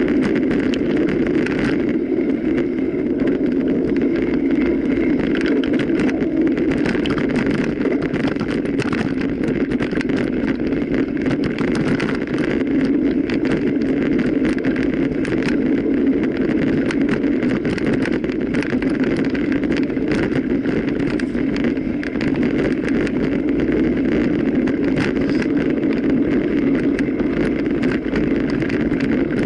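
Bicycle being ridden over rough ground: a steady rumble of tyres and wind, with frequent small rattles and knocks from the bike.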